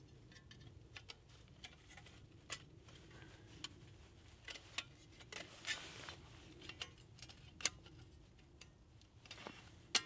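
Faint, irregular metallic clicks and clinks as the metal panels of a folding hobo wood stove are fitted together by hand.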